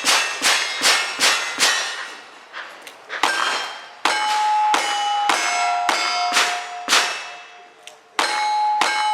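Rapid cowboy action gunfire at steel targets, each shot followed by the steel plate ringing. A quick string of about five shots, a quieter gap of about two seconds, then another steady string of shots about two a second, their plates ringing.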